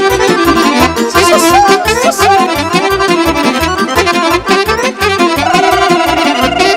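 Live Romanian lăutărească party music between sung verses: a fast, ornamented instrumental melody over a steady quick beat. Near the end a lead instrument holds a long wavering note.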